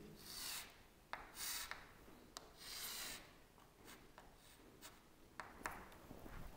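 Chalk drawing lines on a chalkboard: three short scraping strokes in the first three seconds, then a few light taps of chalk against the board.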